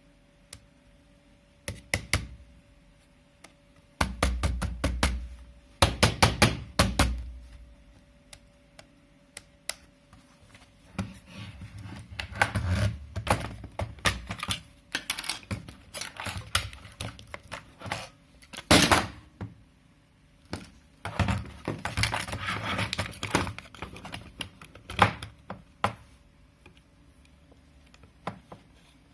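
Bursts of rapid clicking and knocking, some with dull thuds, as a device is handled and its controls are tried. A faint steady hum runs under the first few seconds.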